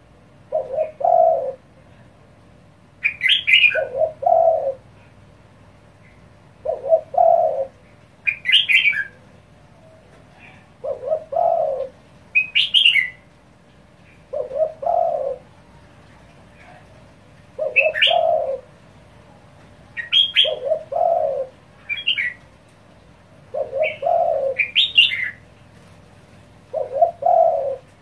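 Caged spotted dove cooing in fast, pressing phrases, one every two to three seconds: the urgent call that Vietnamese keepers use to provoke wild doves. Short high chirps from another bird fall between the coos.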